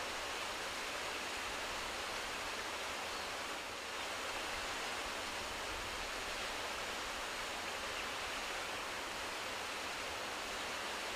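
A steady, even rushing noise with no distinct events, like outdoor ambience of running water or wind.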